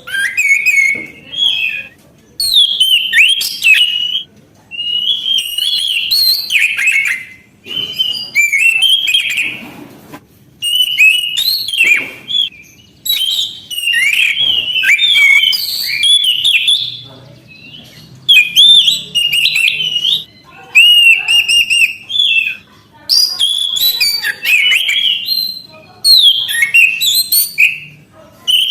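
Orange-headed thrush singing loudly and steadily: long, varied phrases of rapid whistled and gliding notes, each a second or two long, broken by short pauses.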